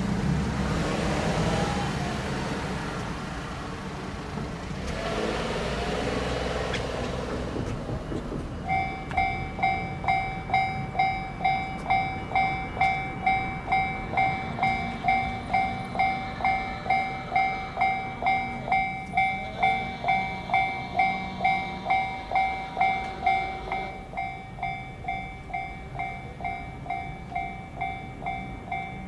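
Warning bell of a Japanese railway level crossing starting up about a third of the way in: a steady ding-ding repeating about one and a half times a second, signalling that a train is approaching. It becomes quieter near the end. Before the bell there is several seconds of passing-vehicle noise with a low hum.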